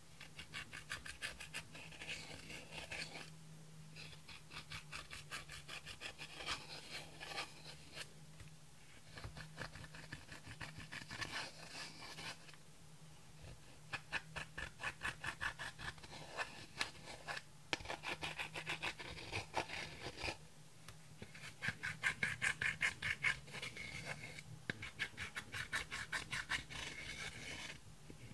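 Pressed eyeshadow being crushed and scraped in its palette pans with a dotting tool: rapid scratchy, crumbly strokes in runs of a few seconds, broken by short pauses.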